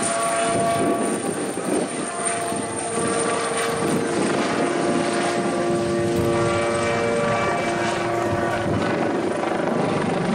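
Kawasaki OH-1 observation helicopter flying overhead in a display pass, its rotor and twin turboshaft engines running steadily, with a whine over the rotor noise.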